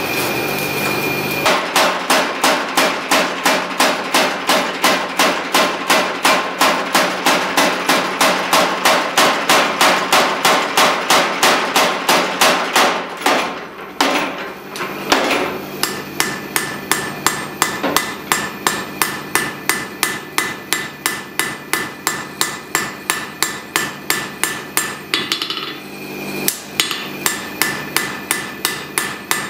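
Hand hammer striking hot damascus steel on an anvil in a steady rhythm of about three blows a second, with a pause of about two seconds near the middle. The first second and a half is the steady rush of the forge fire before the hammering starts.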